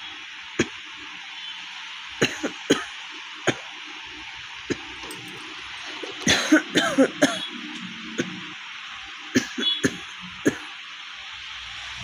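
A woman with a severe cough coughing in short, sharp bursts every second or two, with a run of harsher coughs that carry her voice about six to seven seconds in.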